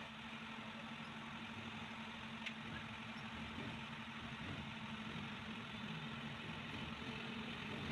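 Steady machine hum, like an engine running at idle, with a single faint click about two and a half seconds in.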